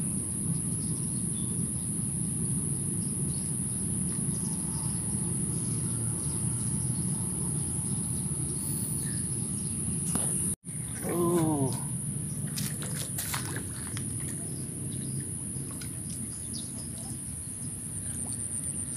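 Steady outdoor lakeside ambience with a low, even rumble and a continuous high hiss. Just past halfway the sound breaks off for an instant, then a short falling bird call follows, and a few light clicks come after it.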